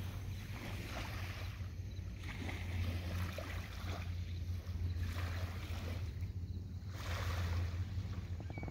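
Gentle waves lapping on a pebbly bay shore, the hiss swelling and ebbing every two to three seconds, over a steady low rumble of wind on the phone's microphone.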